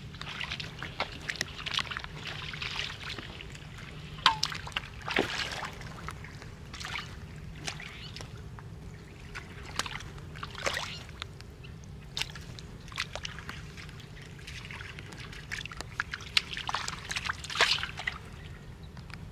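Shallow muddy water splashing, sloshing and trickling as someone wades barefoot and scoops and pours water with a small steel bowl, with irregular splashes, the loudest clusters about four seconds in and near the end. A steady low hum runs underneath.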